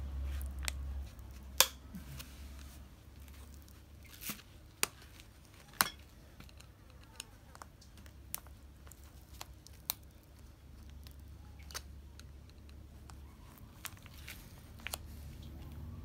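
Plastic snap clips of a washing machine control-board housing clicking and snapping as a small screwdriver pries the case open along its seam: sharp, irregular clicks a second or two apart, with small scraping between them.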